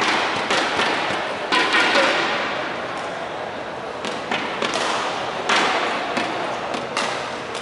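Arena ambience between badminton points: a steady wash of crowd noise that swells twice, with a few sharp thuds and knocks scattered through it.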